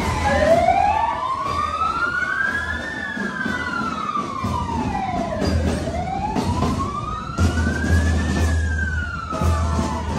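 Emergency vehicle siren in a slow wail, its pitch rising and falling about every five and a half seconds, going through nearly two full cycles.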